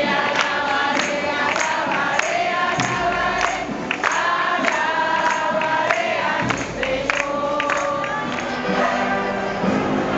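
Choir singing a hymn with instrumental accompaniment and a steady beat.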